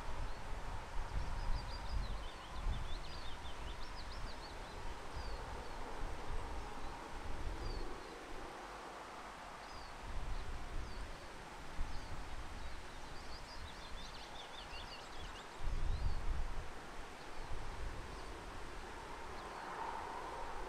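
Outdoor ambience of wind gusting on the microphone and through the trees, over a steady faint hiss. A small bird sings short high chirping phrases twice: about a second in, and again around thirteen seconds.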